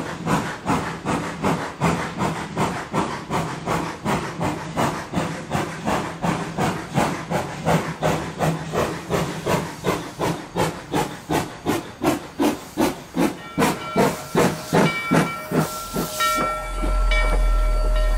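Rio Grande Southern No. 20, a narrow-gauge 4-6-0 steam locomotive, working with an even beat of exhaust chuffs, about two to three a second. Near the end the chuffing fades and a steady whistle tone sounds over a deep rumble.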